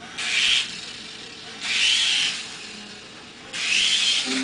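Small electric motor of a toy helicopter whirring in three short bursts, each a whine that rises and falls in pitch.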